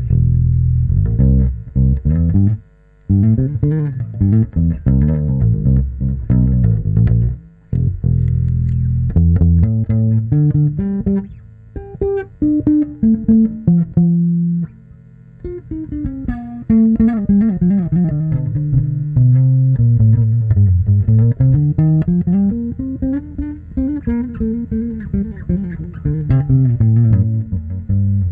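Prince HB32X bass guitar being played, a string of plucked notes and riffs with short breaks about 3 and 15 seconds in, then a fast line of notes climbing and falling.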